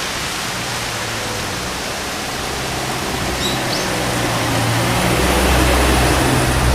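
Steady rain with a brief, faint bird chirp about halfway through. A low rumble swells in the second half.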